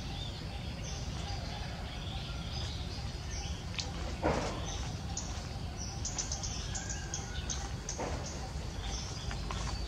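Small birds chirping in short, high, repeated calls over a steady low rumble, with a brief rustling noise about four seconds in.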